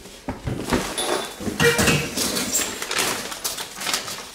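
Irregular scraping, knocking and light metallic clinks of hands working at a hot-water baseboard heater's sheet-metal housing and fittings.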